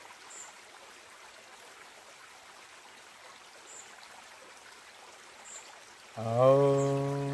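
Faint steady rush of a creek, then about six seconds in a man starts a long chanted 'om' held on one low note: the exhale of the pranav kriya breath.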